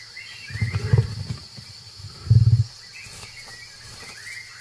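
A tiger growls twice, low and pulsing: first for most of a second, then a shorter, louder growl. A steady high insect chorus and a few bird chirps run underneath.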